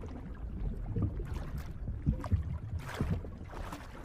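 Water sound: a low, steady rumble of moving water with several brief swishes.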